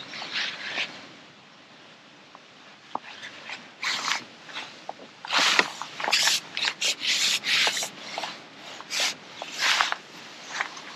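Rustling and scraping of waterproof clothing and fishing tackle close to the microphone as the angler plays a fish and reaches for the landing net. It comes in short irregular bursts, thickest from about four seconds in.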